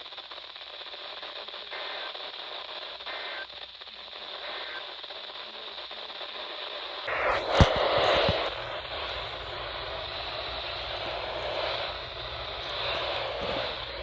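Radio static: a steady hiss of noise from the receiver. About halfway through it jumps to a sudden click and a louder, lower rush of static.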